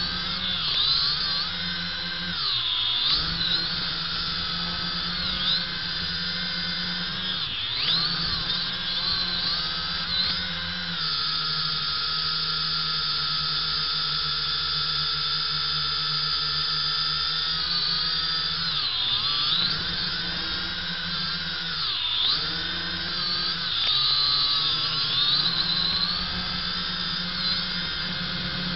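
JJRC H8D quadcopter's motors and propellers whining in flight, the pitch dipping and climbing again every few seconds as the throttle changes and holding steady for a stretch in the middle.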